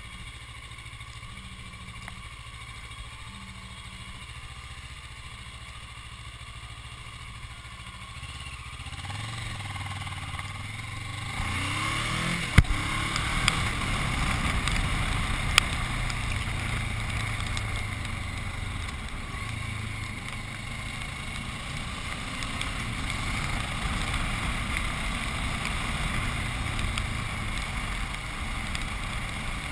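Motorcycle engine idling low and steady, then pulling away with the pitch rising as it accelerates, followed by steady riding with engine and wind noise on the microphone. A couple of sharp clicks come shortly after it pulls away.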